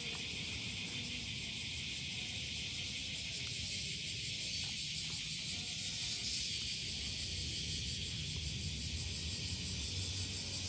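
Insects shrilling: a steady high-pitched chorus with an even, rapid pulse, over a low rumble.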